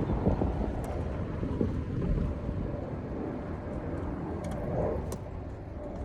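Wind buffeting the microphone over the low, steady rumble of a car driving along.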